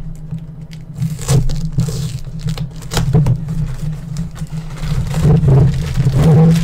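Cardboard shipping box being opened and handled: scattered scrapes and knocks, growing busier near the end as plastic-wrapped parts are pulled out and rustle. A steady low hum runs underneath.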